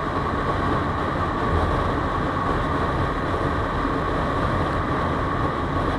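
Motorcycle engine and wind rush on the microphone at a steady cruise of about 105 km/h: a continuous roar with a thin steady whine.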